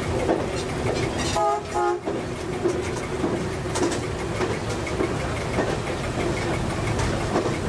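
MAN1 diesel railcar running on meter-gauge track, its engine and wheel-on-rail clatter steady, heard from the driver's cab. About a second and a half in, the railcar's horn gives two short blasts.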